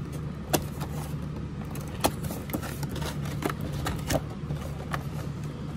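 An action figure's cardboard box and clear plastic tray being opened by hand, with scattered clicks, scrapes and crinkles of cardboard and plastic. A steady low hum runs underneath.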